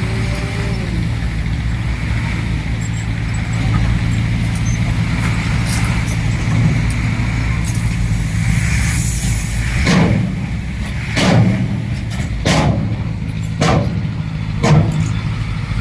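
Heavy diesel earthmoving machinery running steadily, with five sharp clunks about a second apart in the second half and a brief hiss just before them.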